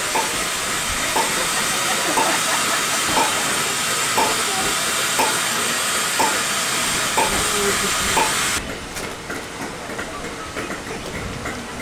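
Stanier Black Five steam locomotive 45212 standing at the platform, its steam hissing steadily with a light tick about once a second. The hiss cuts off suddenly about two-thirds of the way in, leaving a quieter background.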